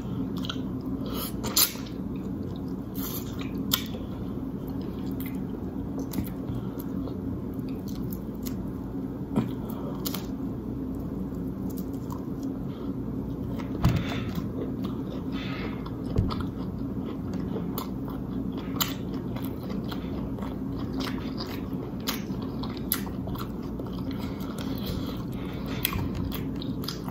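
Close-miked eating of a seafood boil with shrimp: wet chewing and lip smacking, with sharp clicks and a few louder snaps or crunches scattered through.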